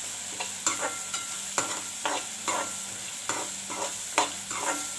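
Metal spatula scraping and clinking against a metal kadai in irregular strokes as raw peanuts and chopped onion are stirred, over the steady sizzle of frying oil. The onion is frying until it turns pink.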